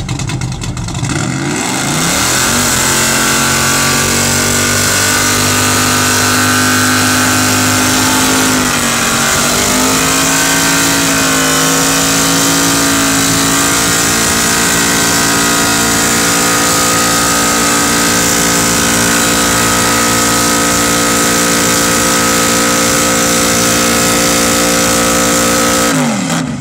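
Classic muscle car doing a burnout: the engine revs up about two seconds in and is held at high revs while the rear tyres spin. The revs dip briefly about a third of the way through, climb back and hold steady, then drop off sharply at the very end.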